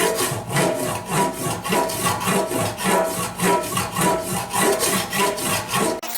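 Hand file scraping over lead body filler on a motorcycle gas tank, in even back-and-forth strokes about two to three a second, with a faint metallic ring from the tank. The filing stops abruptly near the end.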